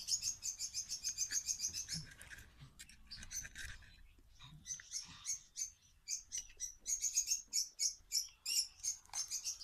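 Small birds chirping in quick runs of high notes, thinning out for a moment about four seconds in before picking up again.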